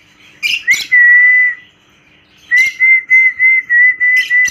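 A held whistled note, then after a short pause a run of short whistled notes on the same pitch, about four a second. Brief sharp chirps from small cage birds fall in between.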